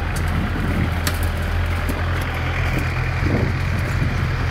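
Jeep engine running at steady, low revs, heard from on board while driving over rough jungle ground, with a hiss of wind or road noise and a few faint knocks.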